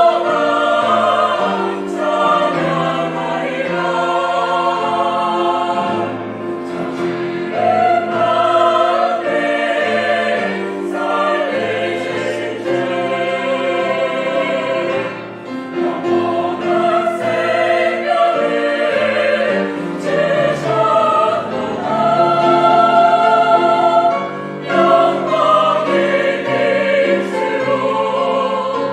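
Mixed church choir of men and women singing a hymn in Korean, in sustained harmony with instrumental accompaniment.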